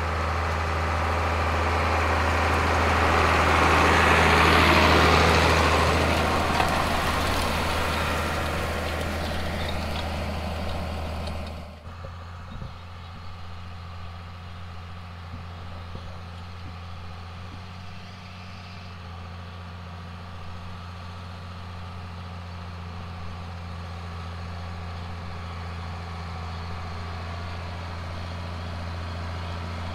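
John Deere 4440's six-cylinder turbocharged diesel running steadily as the tractor pulls a side-dress fertilizer applicator, swelling to its loudest about five seconds in as it passes close. About twelve seconds in the sound drops abruptly to a quieter, steady engine hum.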